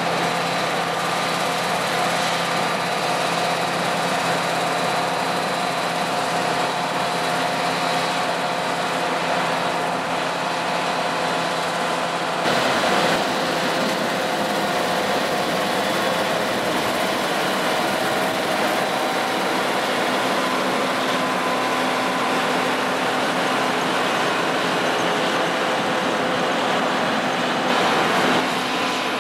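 John Deere 9540i combine harvester running steadily: a dense machine drone with several steady whining tones over it. It briefly gets louder and changes about twelve seconds in, and again near the end.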